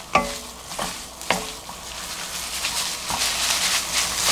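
Wooden chopsticks and a wooden spatula knocking and scraping against a nonstick wok while bracken fern stir-fries in oil, with a few sharp knocks in the first second and a half, then a steady sizzle that grows louder.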